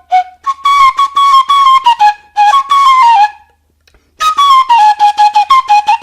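Music: a flute-like melody of short held notes, in two phrases with a brief pause between them, over light percussion.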